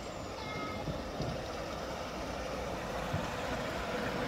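A 7¼-inch gauge miniature railway train, a diesel-outline locomotive hauling a passenger car, approaching along the track and growing steadily louder.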